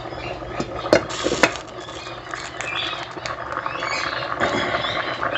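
Kitchen utensils against a cooking pot: two sharp clinks about a second in, then a run of light scraping and rattling.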